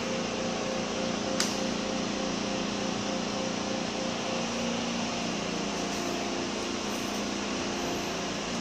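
A steady mechanical hum with a few held tones that shift slightly partway through, and a single sharp click about a second and a half in.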